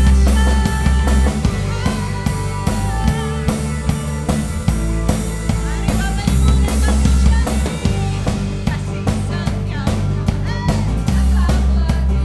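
Worship band music with a full drum kit, kick and snare hits over a steady beat, and bass guitar holding low notes, with a melodic line on top.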